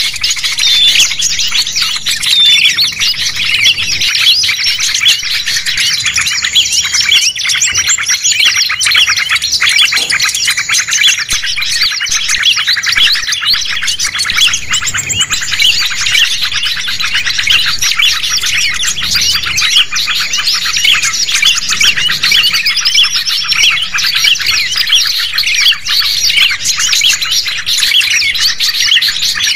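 A loud, dense chorus of many small songbirds chirping and trilling at once without a break: a bird-trapping lure recording ('suara pikat') of a noisy mixed flock, played to draw wild birds in.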